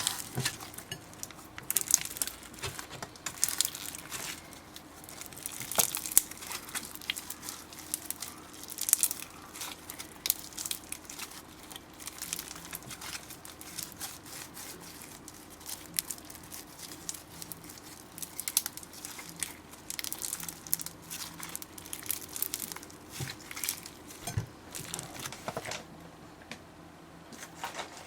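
Slime being squeezed and worked by hand, giving irregular crackles and small pops.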